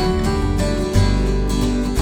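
Background music led by strummed acoustic guitar, with a steady bass and a new chord about every second.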